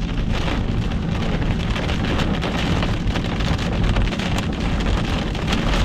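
Heavy rain mixed with hail pelting the car's roof and windshield, heard from inside the cabin as a dense, steady patter of many small impacts over a low rumble.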